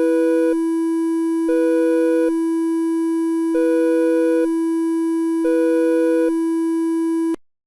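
Synthesized emergency-alert alarm tone: a steady low tone with a higher tone sounding over it four times, about once every two seconds. It cuts off suddenly near the end.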